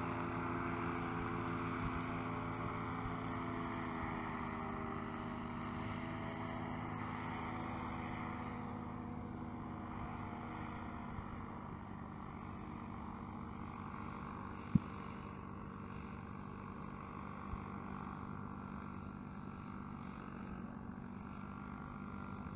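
Blackhawk Lowboy III paramotor trike's engine and propeller droning steadily in flight overhead, pitch wavering slightly early on and growing gradually fainter. One sharp click about two-thirds of the way in.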